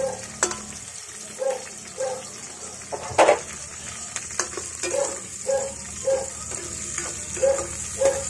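Diced white onion and garlic sizzling in hot oil in a metal pot, with a spatula stirring and scraping against the pot in repeated short strokes. There is one louder knock about three seconds in.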